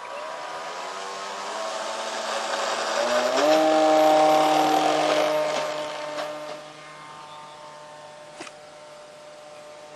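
Graupner Speed 600 brushed electric motor spinning an 8x6 propeller on a model Cub during its takeoff roll, whining up in pitch over the first few seconds. It is loudest about four seconds in, then fades as the plane climbs away.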